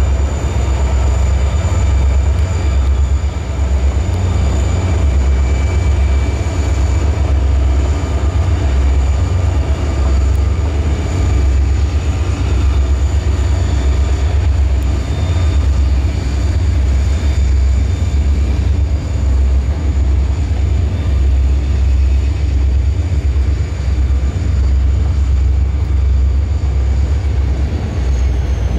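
Train rolling past: a loud, steady heavy rumble with thin high whines held over it, the highest whine sliding down in pitch near the end.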